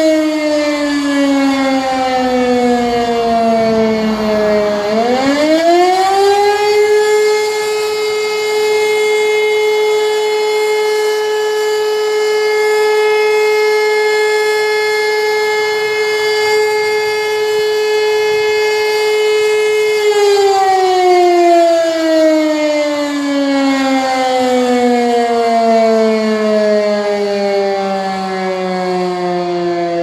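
Fire brigade alarm siren sounding the call-out for a fire. Its pitch slides down, winds back up about five seconds in to a steady tone held for about thirteen seconds, then slides slowly down again.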